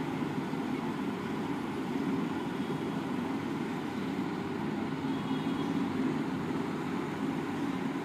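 Steady low rumble of background noise at an even level, with no distinct events standing out.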